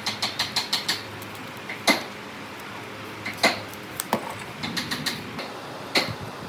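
A series of sharp taps and knocks: a quick run of about seven light taps in the first second, then single louder knocks at uneven intervals.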